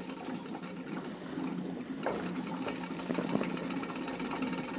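Small model Stirling engine running steadily with a fast, even mechanical whirr, heated by unlit oxyhydrogen gas on its cylinder.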